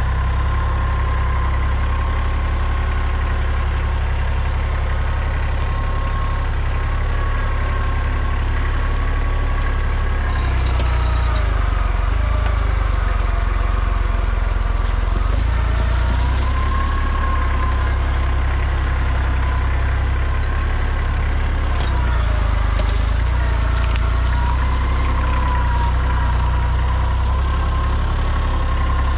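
Kubota compact tractor's diesel engine running under load while its front loader pushes into dirt and brush. A steady whine runs over the engine, and its pitch sags and recovers a few times as the machine labours.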